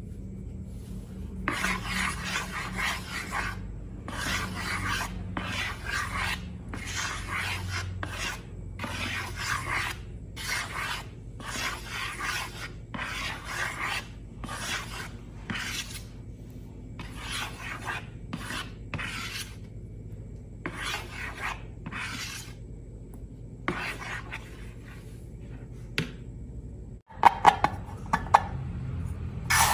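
Slime mixture being scraped in a container: a run of rasping strokes, about one a second, that later stop, followed by a few sharp clicks near the end.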